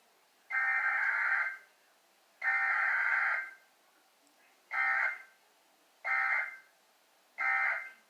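Emergency Alert System data bursts broadcast over FM radio, each a buzzy burst of digital tones. Two bursts about a second long are followed by three shorter ones of about half a second, with about a second of silence between each.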